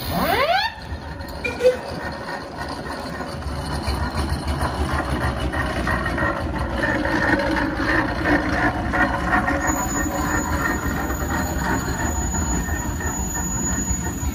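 A steam whistle gives a short toot in the first second, its pitch rising and then falling. Then a steam traction engine towing a wooden living van runs past close by with a steady mechanical rumble.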